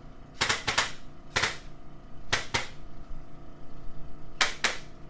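A hand-held chiropractic adjusting instrument clicking as it delivers light taps to the neck: about nine sharp clicks in small groups of two or three.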